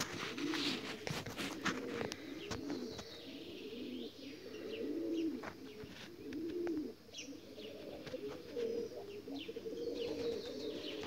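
Pigeons cooing over and over, about one coo a second, with small birds chirping.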